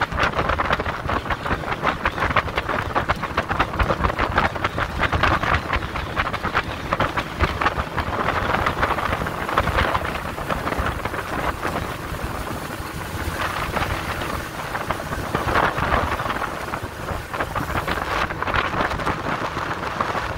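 Wind buffeting the microphone and water rushing and slapping against the hull of a skiff under way, a dense crackling rumble that swells and eases without a clear engine tone.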